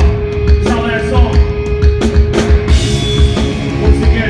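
Black metal band playing live and loud: distorted guitars and bass hold a sustained note over a steady kick-drum pattern and repeated cymbal crashes.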